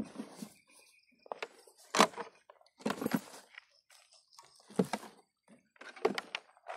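A series of separate knocks and clatters, about six of them roughly a second apart, the loudest about two seconds in.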